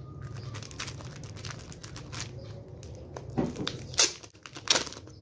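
Thin plastic shrink-wrap crinkling and crackling as hands pull it off a photobook, with three louder sharp crackles in the last two seconds.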